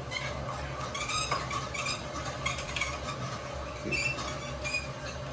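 Toilet auger being cranked and pushed into a clogged toilet drain, its cable giving short, irregular squeaks as it turns against the blockage.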